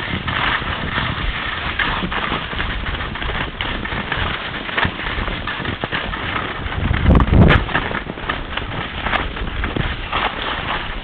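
Skis sliding and scraping over snow on a continuous descent, a steady rushing hiss mixed with wind on the microphone. About seven seconds in there is a louder, deeper rush with a couple of sharp clicks.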